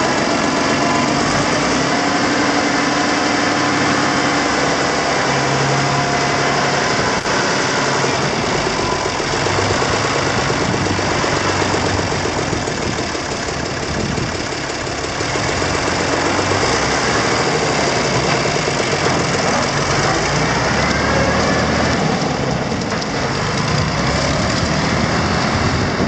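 Deutz D8006 four-wheel-drive tractor's air-cooled six-cylinder diesel running steadily as the tractor pulls away and drives off.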